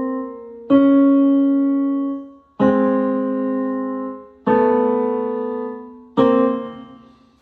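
Piano playing the two tenor lines together as slow held chords: one chord still ringing, then four more struck about two seconds apart, each fading away before the next.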